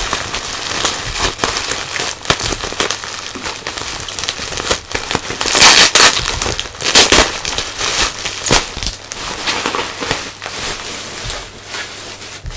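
Plastic bubble wrap crinkling and crackling as it is handled and pulled off a packaged part, in irregular bursts that are loudest around the middle.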